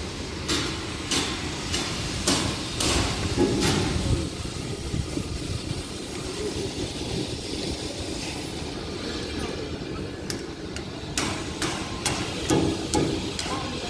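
Construction-site hammering: sharp, ringing strikes about two a second, in a run over the first few seconds and another from about ten seconds in, over a steady low rumble.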